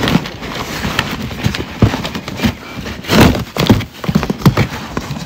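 Plastic strapping cord being pulled and untied from a cardboard box: rustling and scraping of the cord against the cardboard, with irregular knocks of the box being handled, the loudest a little past halfway.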